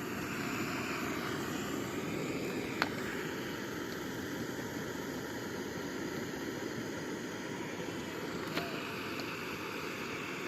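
Portable backpacking stove burner running with a steady roar while breakfast cooks, with two sharp clicks, about three seconds in and again near the end.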